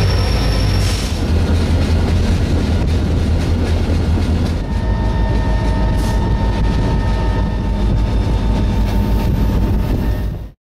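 Train running on the rails: a loud, steady rumble of wheels and cars. About halfway through, a thin, steady high whine joins it. The sound cuts off abruptly just before the end.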